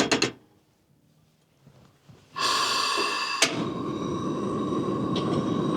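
Portable gas camp stove burner running with a steady hiss and a faint constant tone. It starts suddenly about two seconds in, with a single click about a second later.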